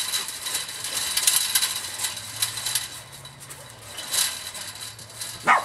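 Metallic jingling and rattling in repeated bursts as a German shepherd noses and pushes at the bottom of a chain-link fence. Near the end the dog gives one short, high yip.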